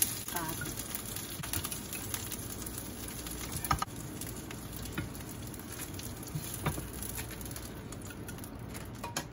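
Oil still sizzling in a frying pan after the heat is turned off, the crackle thinning out near the end. Metal tongs click a few times against the pan and plate as the shrimp patties are lifted out, the loudest click about a third of the way in.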